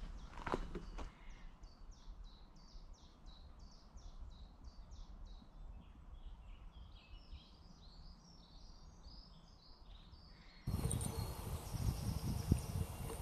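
A songbird singing a run of short, repeated high notes, about three a second, then a faster, more jumbled phrase. A couple of footsteps are heard in the first second, and near the end the background abruptly turns louder, with a low rumble.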